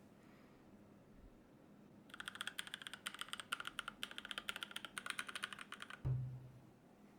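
Typing on a Keychron K12 mechanical keyboard: about four seconds of rapid key clicks, then a single low thump.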